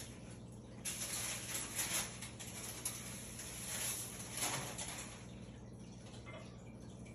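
Rustling and scraping of something being handled, with a few light knocks, for about four seconds, over a steady low hum.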